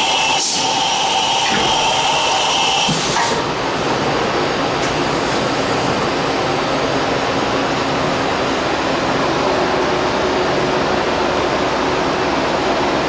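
Steady machinery noise: a loud, even hiss with two whining tones over it that cut off abruptly about three seconds in, after which the steady noise runs on.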